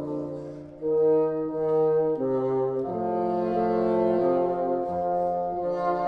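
Bassoon quartet playing sustained chords in several parts, moving to a new chord every second or so. The sound dips briefly just under a second in, then all four come back in together.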